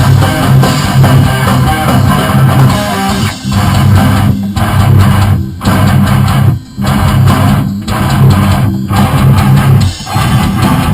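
Loud distorted electric guitar and bass playing a heavy rock riff, broken by several short stops in its second half.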